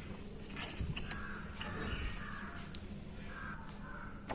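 Faint handling noise from a vacuum cleaner's plastic body and dust-bag compartment being worked by hand: soft rustles and scrapes with a few light knocks.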